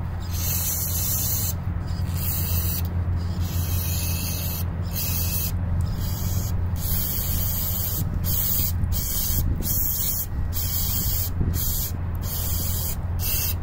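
Aerosol carburetor cleaner hissing through a red straw into a small-engine carburetor's holes and passages. It comes in a dozen or so short sprays of uneven length, stopping and starting about every second, to clear varnish from a gummed-up carburetor. A steady low hum runs underneath.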